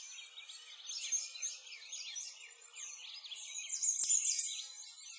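A chorus of many small birds chirping and twittering at once, a dense run of high, quick chirps and sweeping notes.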